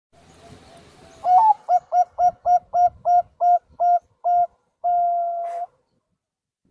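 Zebra dove (perkutut) song: an opening coo with a slight upward lift, then a run of about ten short, evenly spaced coos at a little over three a second, ending in one long held coo that stops abruptly.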